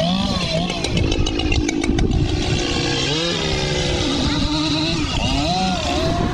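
Chainsaw running and being revved up and down, its pitch rising and falling repeatedly.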